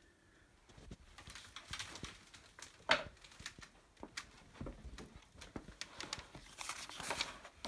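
Handling noise: rustling and crinkling with scattered clicks, and a sharper click about three seconds in, as a plastic-covered library picture book is handled and the hand-held camera is moved about.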